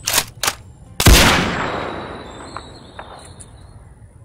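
Gunshot sound effects: two quick sharp cracks, then about a second in one loud shot that echoes away over about three seconds.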